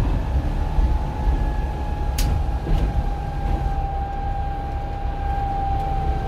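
Optare Metrodecker double-decker bus on the move, heard from the upper deck: a low rumble with a steady whine that slowly drifts lower in pitch, and a single click about two seconds in.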